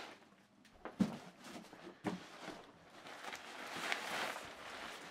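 Two short knocks about a second apart, typical of cardboard box handling, then the crinkly rustle of an inflatable's thin nylon fabric being handled and unfolded.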